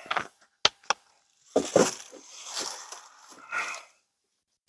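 Dry fallen leaves crunching and rustling in irregular bursts, the longest lasting about two seconds, followed by a single sharp click near the end.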